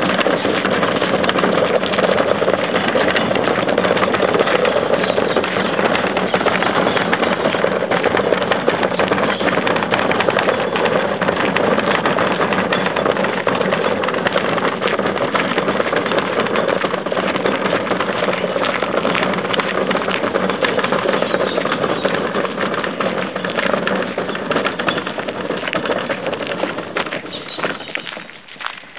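A plastic two-wheeled wheelie bin being pulled over a gravel driveway: its wheels rumble and rattle over the stones steadily, fading and breaking up near the end.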